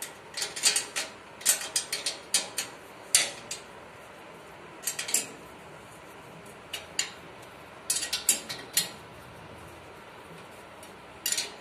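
Steel ring spanner clinking against a nut and the cast-iron sewing machine stand as a bolt is worked tight. The clinks come as sharp metallic clicks in irregular clusters with pauses between them.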